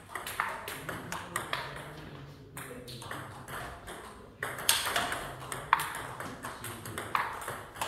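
Table tennis rally: the celluloid ball clicking off rubber-faced bats and bouncing on the table in quick sharp ticks. There is a short lull a little past the middle before the next rally starts with louder hits.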